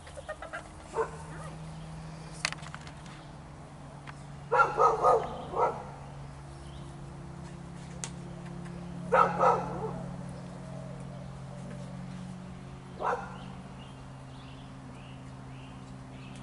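Dog barking in short volleys: a run of about four barks some four and a half seconds in, two more around nine seconds, and a single bark near thirteen seconds, over a steady low hum.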